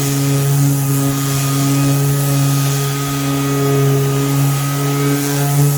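Bauer 20V cordless 5-inch random orbital sander running under load while sanding a sign: a steady motor hum with the hiss of the sandpaper.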